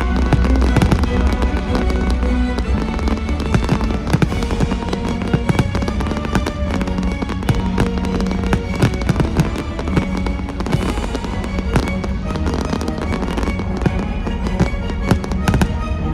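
Fireworks going off in rapid succession, many sharp bangs and crackles, over loud show music played through loudspeakers.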